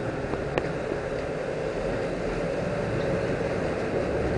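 Sportfishing boat's engines running under a steady rush of churning water along the stern, with one short sharp click about half a second in.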